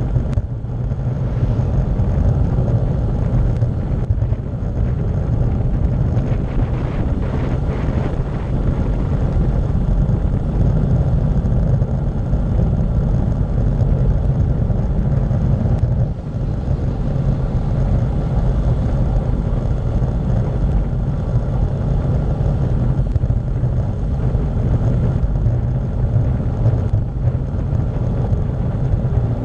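Steady low rumble of wind buffeting the microphone of a bicycle-mounted camera on a fast descent, mixed with road-bike tyre noise on asphalt.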